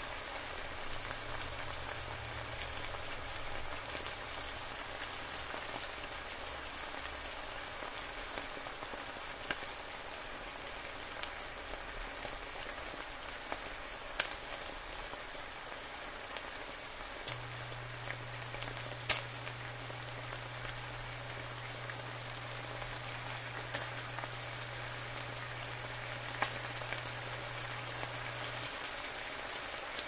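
Eggs cooking in the tomato sauce of a shakshuka in a pan, a steady sizzle and crackle. Now and then a sharper pop or spit cuts through, the loudest about two-thirds of the way in.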